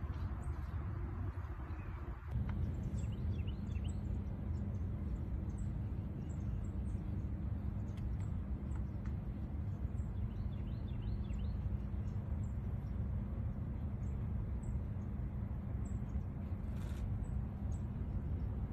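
Outdoor ambience: a steady low rumble with small birds chirping in many short, high calls, thinning out toward the end.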